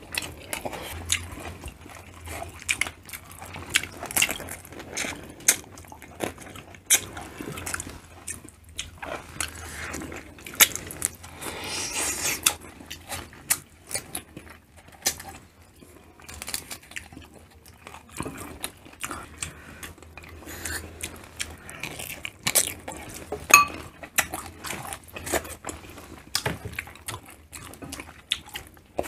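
Close-up eating sounds of a shrimp and crab seafood boil: chewing, biting and crunching, with many short clicks and cracks throughout.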